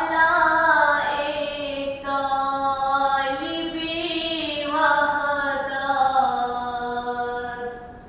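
A woman's solo voice chanting a devotional text unaccompanied, in long held notes that slowly fall in pitch, with a brief breath about two seconds in and the phrase fading out just before the end.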